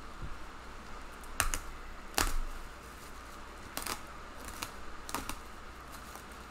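Plastic bubble wrap crinkling as hands dig through it inside a cardboard box, with about half a dozen sharp crackles, the loudest about two seconds in. A room fan gives a steady hiss underneath.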